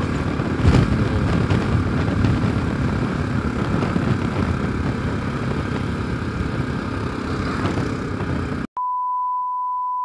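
Motorcycle engine running steadily under way, with road and wind noise. Near the end it cuts off abruptly and is replaced by a steady pure beep tone lasting about a second and a half.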